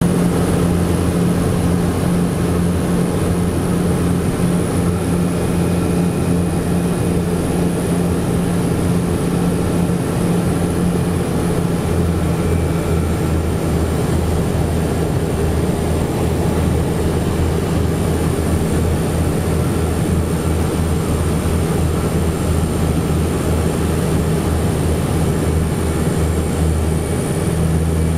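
Steady, loud drone of a seaplane's propeller engines heard inside the cabin during the landing approach and touchdown on water. About halfway through the engine note shifts deeper.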